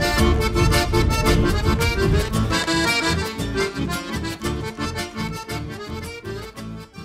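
Accordion-led music with a steady beat, fading out over the last few seconds.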